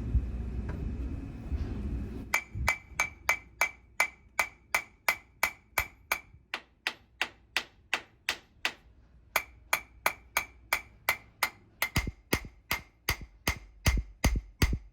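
A couple of seconds of low rumbling noise, then a hammer striking metal in a steady series of blows, about three a second, each with a short metallic ring, pausing briefly around the middle before carrying on.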